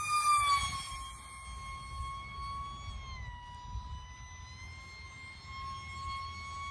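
Small 3D-printed F-22 RC plane's electric motor whining steadily in flight. The whine is loudest at the start and drops in pitch as the plane passes close, dips lower again about three seconds in, and rises a little near the end. Low wind rumble on the microphone sits underneath.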